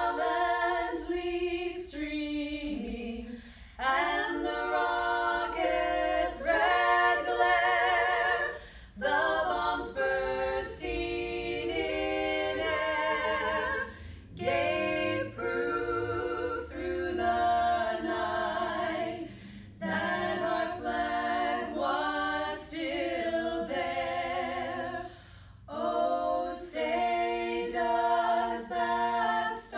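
Three women singing a national anthem a cappella in close harmony, with vibrato on the held notes. The phrases are broken by short breath pauses every five or six seconds.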